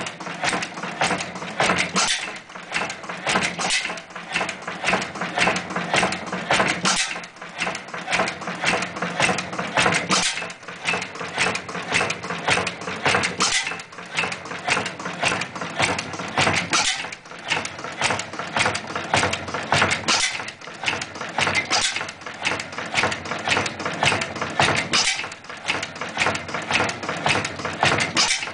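A Triumph 4½ hp hot-bulb stationary oil engine running steadily, giving a fast, even mechanical clatter.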